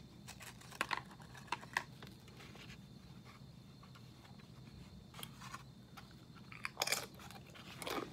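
A bag of tortilla chips crinkling as a chip is taken out, then a salsa-dipped tortilla chip crunched between the teeth, with the loudest crunches near the end.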